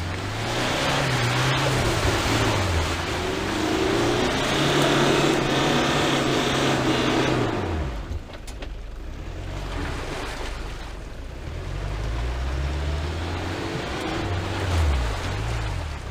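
4x4 pickup truck engine revving hard under load as the truck climbs out of a mud pit, with tyres churning mud and water for about the first eight seconds. The engine then eases off and revs up again near the end.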